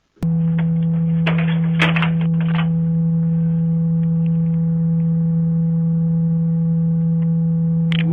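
A loud, steady low hum that starts abruptly just after the beginning and holds unchanged, with a few clicks and crackles in the first few seconds and a short rising sound near the end.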